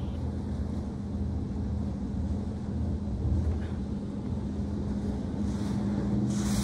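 High-pressure water spraying against a pickup truck's body and windows in an automatic car wash, heard from inside the cab as a steady rushing hiss over a steady low hum. The spray grows a little brighter near the end.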